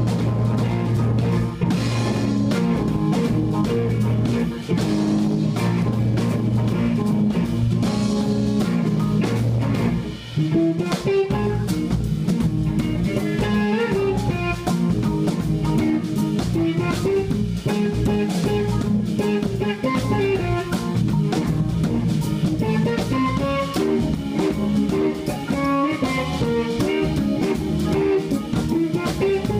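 Live electric band (electric guitar, electric bass and drum kit) playing a bluesy jazz-funk groove. A little after ten seconds in, the band breaks briefly and a melodic guitar line starts over the rhythm.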